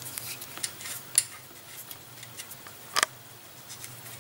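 Small metal clicks and taps as a hex screw and frame-lock parts are handled against a bicycle frame, with two sharper clicks about a second in and about three seconds in.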